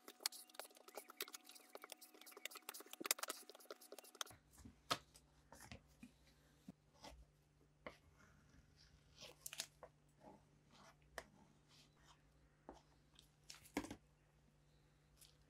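Spreader scraping and working grey filler paste on a card, a dense run of small scrapes and clicks. After about four seconds the scrapes grow sparser as the filler is spread over the pitted steel handle of a can opener.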